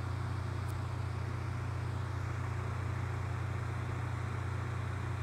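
Steady low hum with a faint hiss of background noise, unchanging throughout.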